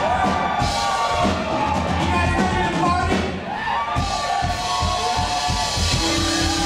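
Live rock band playing electric guitars and a drum kit at full volume, with steady drum hits under the guitars.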